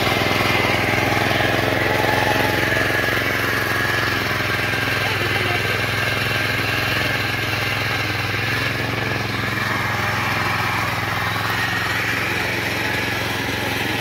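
Small petrol engine of a walk-behind mini tiller (rotary cultivator) running steadily under load while its tines dig through soil.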